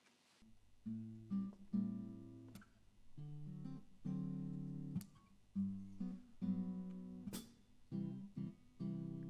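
Acoustic guitar playing the opening chords of a song, starting just under a second in, with a few sharp clicks among the chords.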